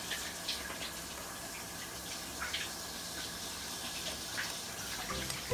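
Steady faint hiss of background noise, with a few faint soft ticks.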